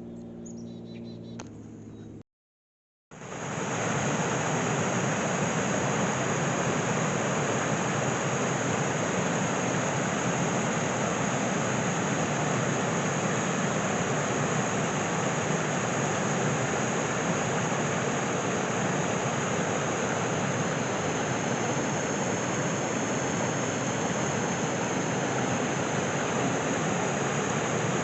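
Small waterfall's water rushing steadily. It starts about three seconds in, after a short faint hum and a moment of dead silence.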